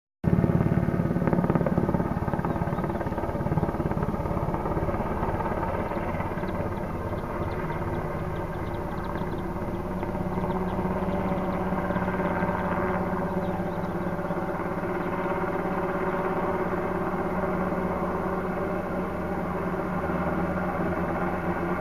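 Search-and-rescue helicopter in flight, a steady engine-and-rotor drone with a fluttering low beat, a little louder for the first couple of seconds.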